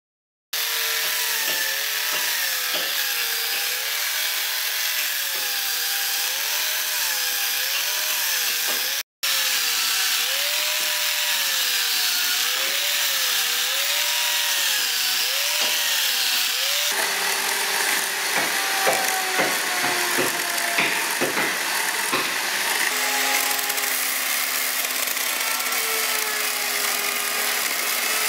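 Corded electric chainsaw cutting into a solid wooden block. Its motor note rises and falls in a regular wave as the bar is worked back and forth through the cut, and it breaks off for an instant about a third of the way in. Past the halfway mark it settles to steadier notes with a scatter of sharp knocks and clatter from the cutting.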